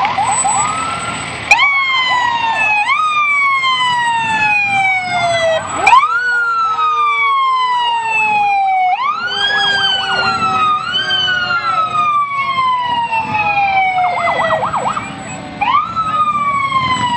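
Fire truck siren sounding over and over: each time it shoots up in pitch and then slides slowly down over a second or more. A short fast warbling yelp comes in about three quarters of the way through.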